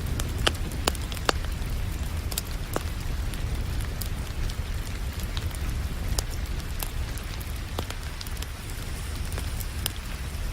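Wood fire crackling, with irregular sharp pops, over a steady hiss of rain and a low rumble underneath.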